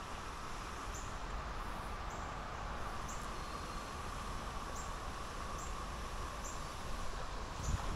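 River water running steadily over shallows, with a short high chirp repeating about once a second and a low thump near the end.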